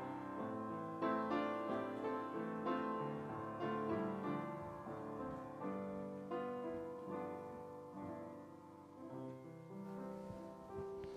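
Piano playing a slow, gentle passage of struck chords about once a second, the music slowly dying away near the end.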